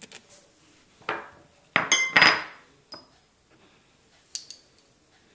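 Metal spoon clinking against ceramic bowls: several short, ringing clinks, the loudest about two seconds in.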